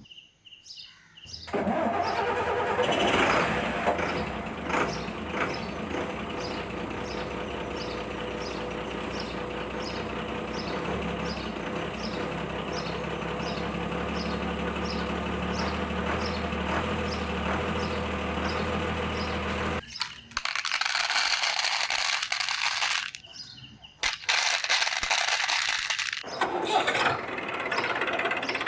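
Battery-powered toy vehicle running with a steady engine-like hum and a regular ticking about twice a second, which stops abruptly about twenty seconds in; shorter stretches of noisy sound follow.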